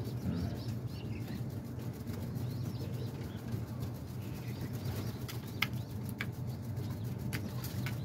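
Pigeon pecking grain from a plastic tray: a few sharp clicks in the second half, over a steady low hum.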